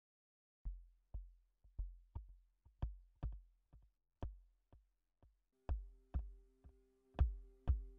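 Electronic music: a drum-machine beat of low, sharply struck thumps with clicks on top, falling roughly in pairs, joined about five and a half seconds in by a sustained synthesizer chord.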